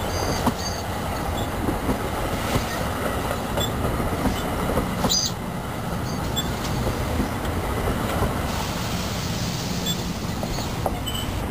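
NJ Transit multilevel double-deck passenger coaches rolling past, a steady rumble of wheels on rail with scattered clicks. Brief high wheel squeals come in near the start and again about five seconds in.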